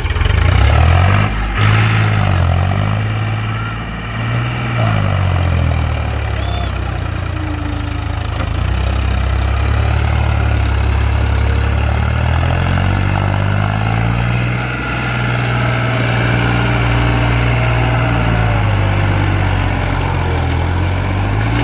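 Heavy diesel engine running loud, its deep note rising and falling several times as it is revved up and down under load.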